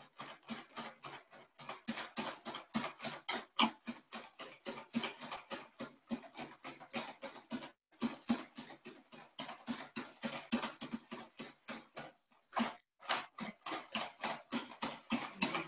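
Coconut oil and lye solution being stirred by hand in a plastic bowl to make soap: quick, even swishing strokes, about five a second, with short breaks about eight and twelve seconds in.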